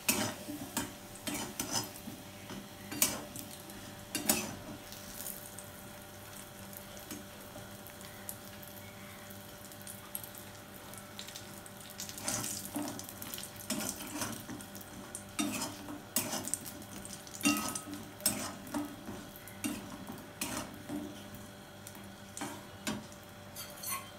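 Metal spatula scraping and tapping against a wok as lentil dumplings (bori) fry in a little oil, over a light sizzle. The strokes are irregular and thin out between about 5 and 12 seconds in.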